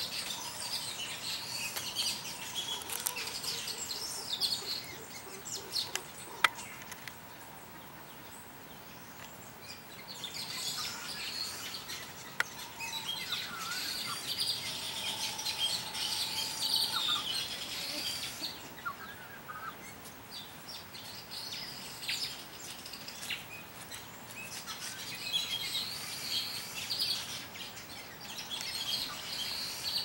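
A chorus of small songbirds chirping and twittering, coming and going in busy bursts, with a sharp click about six seconds in and another near twelve seconds.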